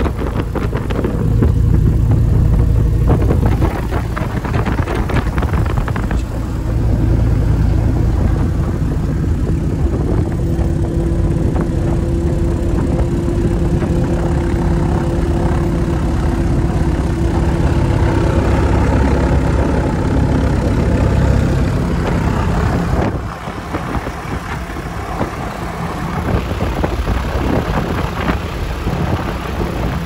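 Cessna O-1G Bird Dog's Continental O-470 flat-six engine and propeller running at low power, heard from inside the cockpit as the aircraft moves on the grass. The sound drops about two-thirds of the way through, then builds steadily again toward the end.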